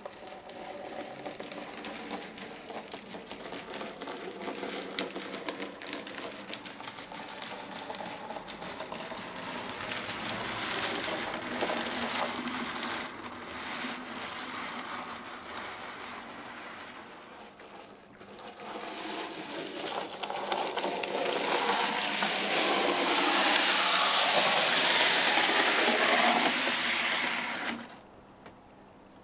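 N gauge model train running on the track: the small electric motor whirring, with light clicks from the wheels on the rails. It grows louder about two-thirds of the way in as the train passes close, then drops off sharply near the end.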